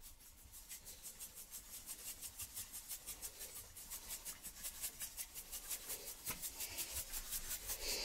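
Salt mill grinding salt over raw chicken breasts: quick, even grinding strokes, about six a second, getting slightly louder toward the end.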